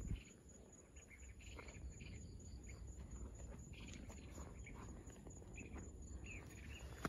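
Faint outdoor ambience of small birds chirping in short, scattered calls, with insects, over a low rumble; a thump right at the very start.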